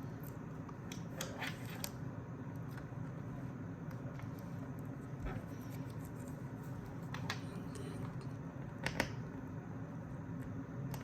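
A few faint, short clicks and ticks as a watch deployment clasp and a small strap tool are handled and worked, over a steady low hum.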